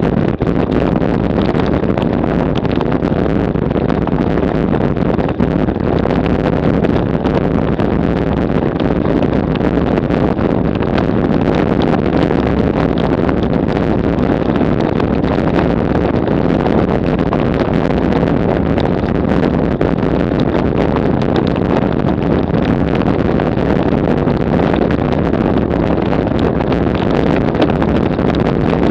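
Road bike ridden fast over cobblestones, its frame and the bike-mounted camera rattling and clattering without a break, with wind rushing over the microphone.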